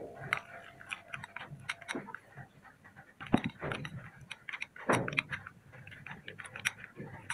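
Metal spoon clinking and scraping against a bowl while stirring flour and water into a thin paste, in irregular light clicks with a few louder knocks.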